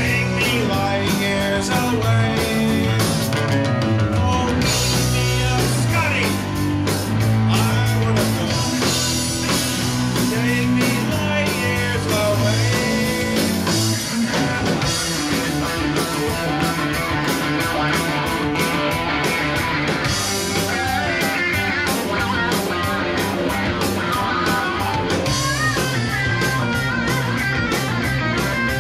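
Live rock band playing: drum kit, bass and electric guitar, with a man singing into a microphone. Near the end an electric guitar lead with bending notes comes forward.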